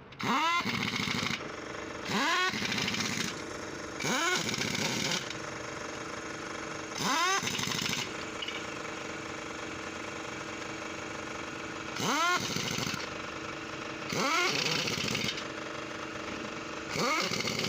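Pneumatic impact wrench working a truck's wheel nuts: seven short bursts of about a second each, each starting with a quickly rising whine, over a steady mechanical hum.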